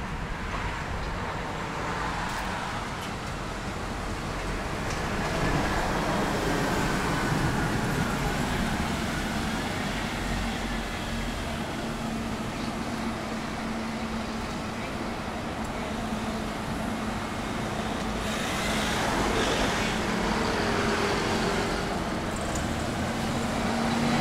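Road traffic on a city street: cars and buses going by, the noise swelling as vehicles pass about five seconds in and again a little before the end, with a steady low engine hum through the later part.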